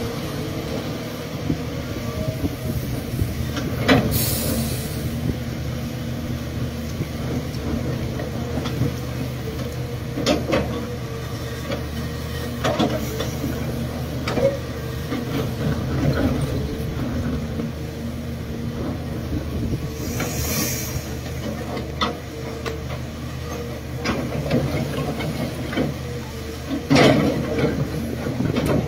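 Caterpillar 336 hydraulic excavator's diesel engine running steadily while it digs and loads a dump truck, with scattered clunks of earth and rock, the loudest near the end. Two short bursts of hiss, about four seconds in and about twenty seconds in.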